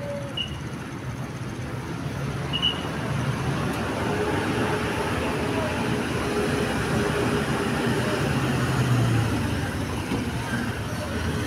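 A road vehicle passing close by: engine and tyre noise builds up, peaks about nine seconds in, then eases off.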